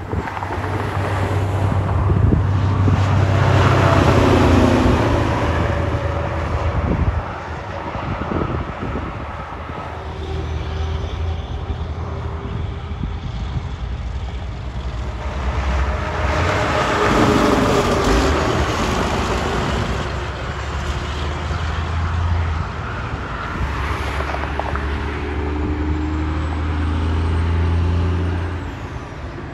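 Highway traffic passing: cars and semi-trucks go by one after another, each swelling and fading with tyre noise over a low engine drone. The loudest passes come a few seconds in and again around the middle, and a tractor-trailer tanker runs by near the end.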